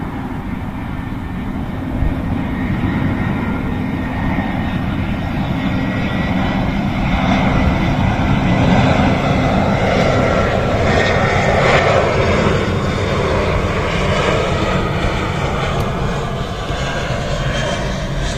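A Boeing 787 jet airliner on final approach passes low overhead. Its engines make a continuous rushing roar over a deep rumble, swelling to their loudest in the middle as the plane goes by, then easing slightly.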